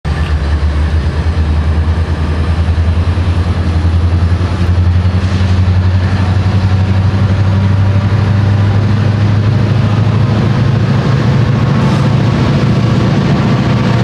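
Diesel-electric freight locomotives running under load, a deep, steady engine throb. The note grows stronger in the second half as the throttle opens, sending up black exhaust.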